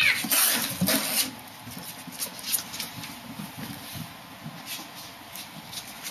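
A kitten and ferrets scuffling at play: claws and paws scrabbling and rustling against a cardboard box and a wooden floor, loudest in the first second, then scattered light scuffs and taps.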